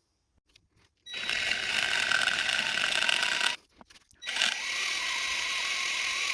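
Power drill running under load as a drill bit cuts into the head of a seized, rounded allen-head bolt to drill the head off. It starts about a second in, stops briefly about halfway, then runs again with a steady whine.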